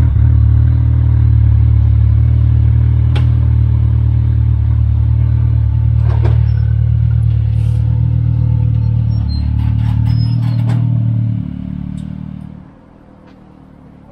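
Can-Am Maverick X3's turbocharged three-cylinder engine idling through a full Evolution Powersports aftermarket exhaust: a steady, deep drone with a few light clicks. It fades out about three-quarters of the way through.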